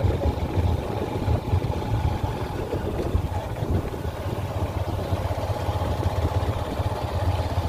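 Motorcycle engine running as the bike rides along the road, a steady low rumble.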